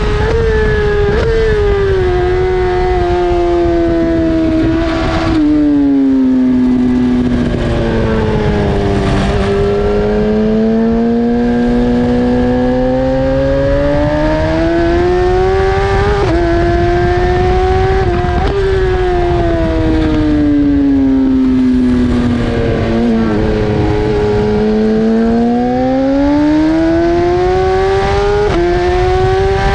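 BMW S1000RR inline-four racing engine heard from onboard, its pitch falling and rising twice as the bike slows for corners and accelerates out, with sharp breaks in pitch at the gear changes. A steady rush of wind and road noise runs beneath it.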